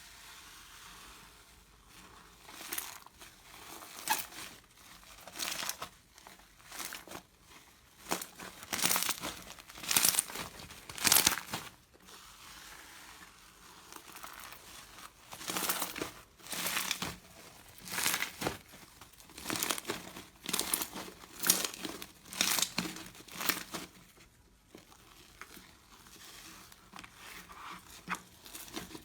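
Slime being squeezed and pressed by hand, crackling and crinkling in repeated bursts about once a second, with a couple of quieter pauses.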